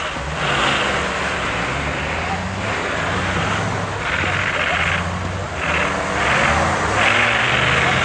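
Off-road 4x4 engine running and revving unevenly, with repeated surges of rushing noise every second or so.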